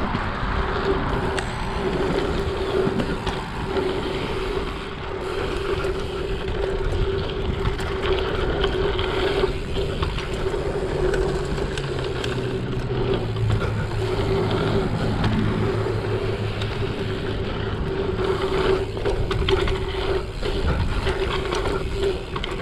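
Wind rushing over the microphone of a camera worn by a bike rider, mixed with tyres rolling and crunching on packed dirt through a dirt-jump line, with a steady hum underneath.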